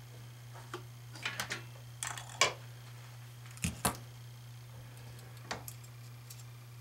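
Scattered light clicks and taps of hand handling as the soldered balun coil and its copper leads are worked free of a metal vise, the loudest about two and a half seconds in, over a steady low hum.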